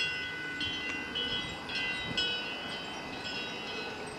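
Wind chime ringing, its tubes struck again and again by the wind so that several bell-like tones overlap and sustain, with a fresh strike every half second or so.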